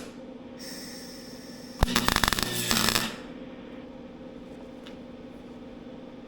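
A power tool runs in a short burst of just over a second, a loud rapid rattle starting with a sharp click about two seconds in, over a steady low hum.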